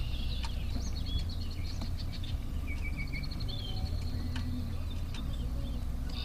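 Songbirds singing, a mix of quick trills and short chirping calls, over a steady low rumble.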